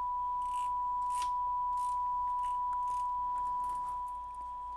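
A steady 1 kHz test tone played through a JVC R-S33 stereo receiver, its audio output working again after the output transistors were resoldered. The tone dips slightly in level about four seconds in, over a faint low hum, with light clicks from the controls being worked.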